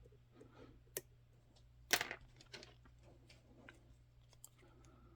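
Faint small metallic clicks and ticks of a lock pick working the pins inside an EVVA ICS lock, with two sharper clicks about one and two seconds in.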